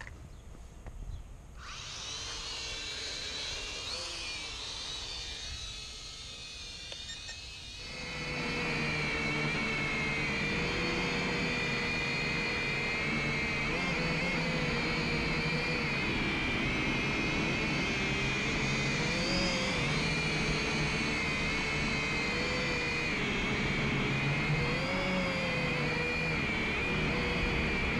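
Quadcopter drone's electric motors and propellers whining steadily, the pitch wavering a little as the throttle shifts. The whine starts about two seconds in and steps up to a louder, fuller sound about eight seconds in, as the motors speed up.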